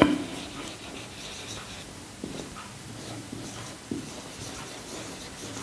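Quiet writing sounds, a pen or marker scratching on a surface, with a sharp knock right at the start and a couple of fainter knocks later on.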